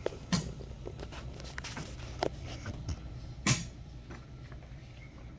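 Footsteps and shuffling of a procession moving across a room, with a few scattered sharp knocks, the loudest about three and a half seconds in, over a low steady hum.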